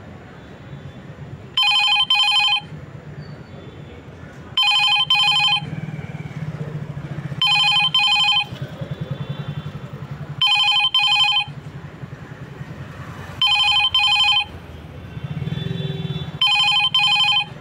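Rapido rider app's new-order alert on a smartphone: a ringing electronic tone in quick double pulses, repeating about every three seconds, six times, signalling ride requests waiting to be accepted. A faint low rumble runs underneath.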